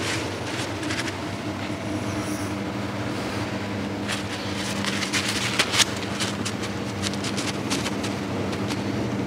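Steady machine hum with scattered short clicks and rustles, densest between about four and six seconds in.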